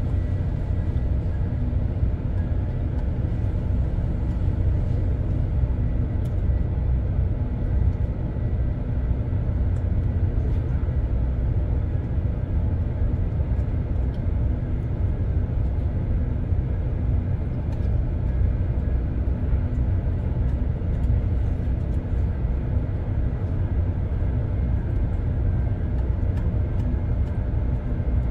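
Ship's machinery running: a steady low rumble with a constant hum over it. A few faint clicks sound over it now and then.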